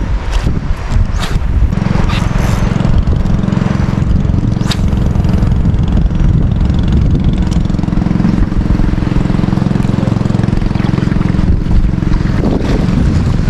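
A small boat's engine running at a steady pitch, coming in about two seconds in, with wind buffeting the microphone.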